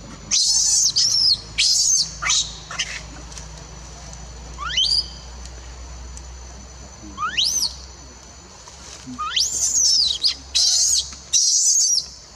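Baby long-tailed macaque screaming in a series of high, steeply rising squeals, several in quick succession early on, single ones around five and seven seconds, and another burst near the end. These are distress calls as its mother pins it down and pushes it away from nursing.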